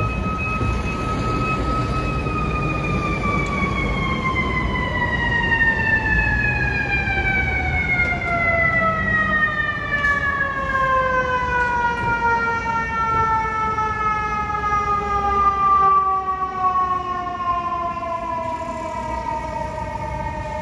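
Fire engine siren in one long, slowly falling wail that winds steadily down in pitch throughout, the way a mechanical siren coasts down, over the low rumble of street traffic.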